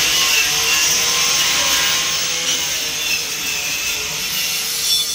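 Power tool grinding rust and dirt off a stripped motorcycle chassis: a loud, steady, rasping grind.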